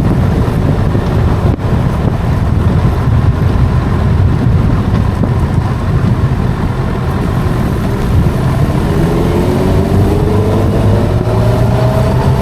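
Road traffic running steadily, with a heavy low rumble. From about eight seconds in, a vehicle's engine rises in pitch as it accelerates.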